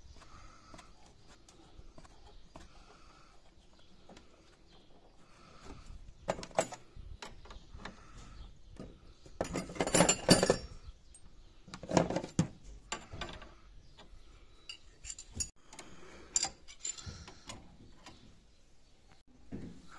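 Metal clinks and knocks of a steel spanner and fittings on brass flare nuts as copper refrigerant pipes are joined and tightened. The sounds come in scattered short taps, with the loudest run of clanks about halfway through and a few sharp knocks after it.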